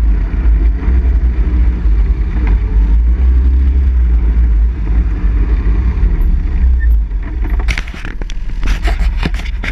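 ATV engine running as the quad rides a dirt trail, with a heavy low rumble. About seven seconds in the engine sound eases, and a run of sharp knocks and clatters follows.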